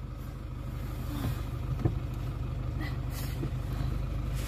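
Steady low rumble of a pickup truck driving, heard from inside the cab: engine and road noise, with a couple of faint clicks or rattles.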